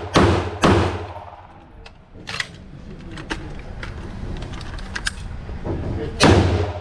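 Two gunshots in quick succession ring through an indoor shooting range, followed by a few seconds of scattered metallic clicks from gun handling. Another shot comes near the end.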